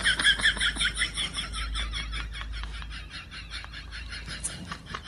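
An animal's rapid, even chirping, about seven short high chirps a second, slowly fading.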